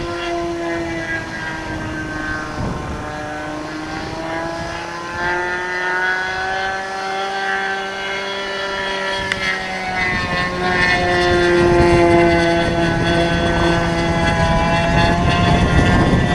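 The model engine of a GP Revolver .60 RC plane in flight, a steady whine that slowly rises and falls in pitch as the plane passes and the throttle changes. Wind buffets the microphone throughout.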